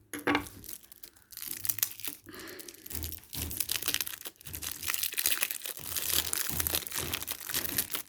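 Packaging crinkling and tearing as a pack of Pokémon energy cards is opened, a dense crackle with sharp snaps starting about a second in.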